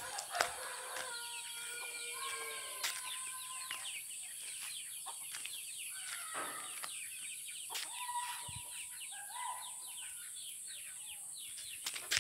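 Domestic chickens clucking and calling, with many short, high, falling calls throughout and a steady high-pitched insect drone underneath.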